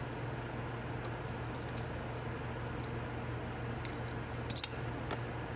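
Light metallic clinks of tools and small steel parts being handled, with two sharp clinks about four and a half seconds in. A steady low hum runs underneath.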